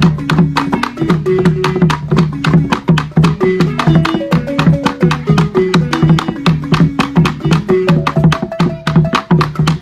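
Balafon, a wooden xylophone with gourd resonators, played fast with mallets in a repeating melodic pattern of short wooden notes, with a laced barrel drum played by hand and with sticks.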